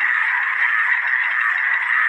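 A dense chorus of many frogs calling at once, their calls overlapping into a steady, unbroken sound.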